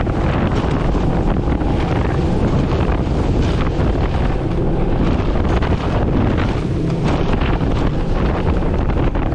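Wind buffeting the microphone: a steady, loud, low rumbling noise with no let-up.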